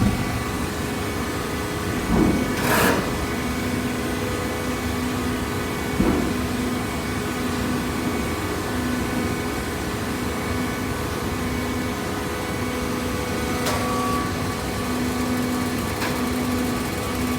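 Downstroke hydraulic baler's motor and pump running with a steady hum, with a short rustling clatter about two seconds in and a single knock about six seconds in.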